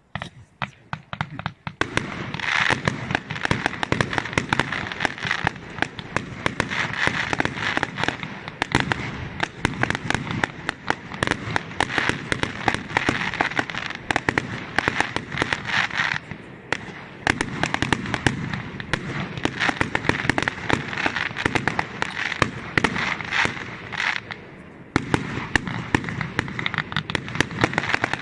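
Fireworks display: a dense, rapid run of cracks and pops from many shells and crackling effects going off together, thinning briefly about two-thirds of the way in and again shortly before it picks up near the end.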